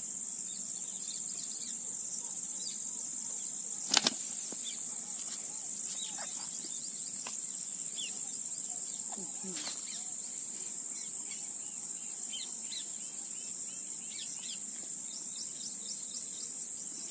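Steady high-pitched insect chorus with scattered faint short chirps, and a sharp double click about four seconds in.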